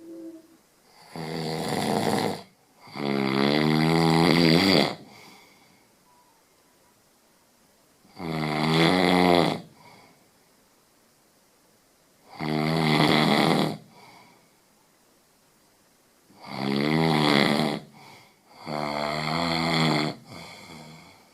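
Very loud snoring: six long, pitched snores of one to two seconds each, coming every few seconds and twice in close pairs, with quiet between them.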